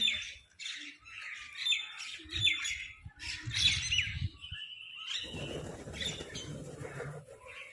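Crows giving repeated harsh squawks and caws while fighting over food. A low rumbling noise joins in about five seconds in.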